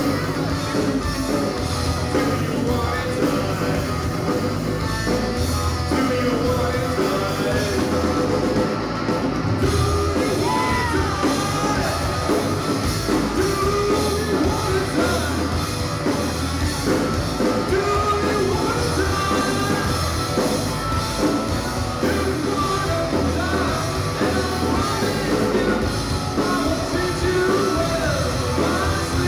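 Rock band playing live with a singer over guitars, bass and drums.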